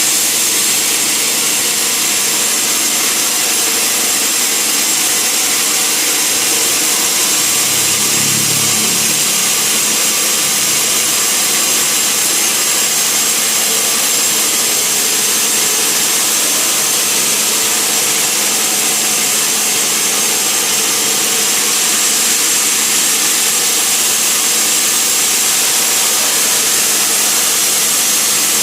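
Sawmill saw running steadily as it cuts through a log, a constant loud, high-pitched hiss.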